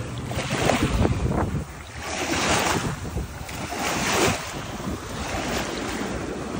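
Small waves breaking and washing up the sand at the water's edge, with two louder washes a couple of seconds apart. Wind buffets the microphone in the first second and a half.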